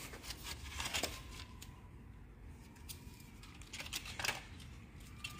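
A few faint, scattered clicks and light taps against a quiet background.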